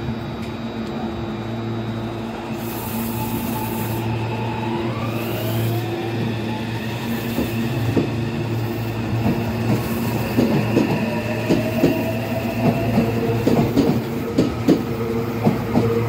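Meitetsu 2000 series μSKY electric train moving along the platform and gathering speed. Its traction motors whine with a pitch that rises, and from about halfway in the wheels clack over rail joints more and more often.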